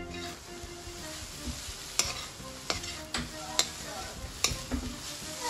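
Shredded cabbage and grated coconut sizzling as they are stir-fried in a kadai, stirred with a long metal spatula. There is a steady hiss, and from about two seconds in the spatula clinks sharply against the pan about five times.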